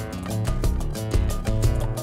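Upbeat instrumental music with plucked guitar over a steady bass line.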